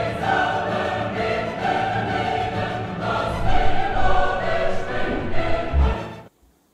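Dramatic choral music with singing voices and orchestra. A low thump comes near the end, and then the music cuts off suddenly.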